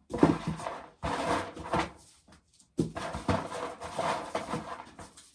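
Dried ear corn being shelled by hand, kernels scraped off the cob with a rattling, rasping sound in three bursts separated by short pauses.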